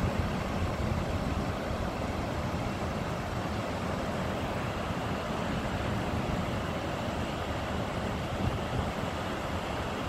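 Steady outdoor rushing noise: a constant even rush with no distinct events, with no clear single source.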